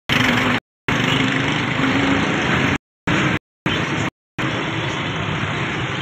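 Steady noise of street traffic with engines running. The sound cuts out abruptly to dead silence four times, for a fraction of a second each.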